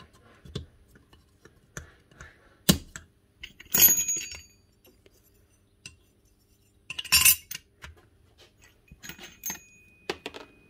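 Metal parts of a rotary hammer being handled and set down during reassembly: scattered sharp clinks and knocks, two louder clusters about four and seven seconds in, some leaving a brief metallic ring.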